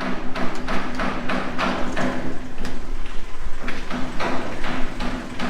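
Irregular clacking and knocking, several times a second, typical of a stack of boxed ceramic tiles being handled, over a steady low hum.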